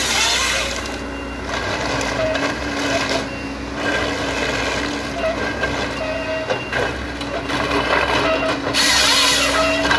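Kesla 25RH harvester head on a Hitachi ZX138MF-5G excavator processing eucalyptus: the machine's engine and hydraulics run with a steady hum and intermittent higher whines, and a burst of hiss comes about a second in and again near the end.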